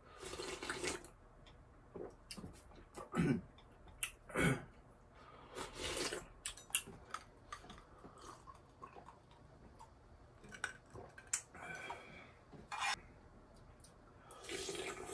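A person slurping spicy ramen broth from a shallow dish, with two loud gulps about three and four and a half seconds in. Smaller mouth and utensil clicks follow, then a longer slurp of noodles near the end.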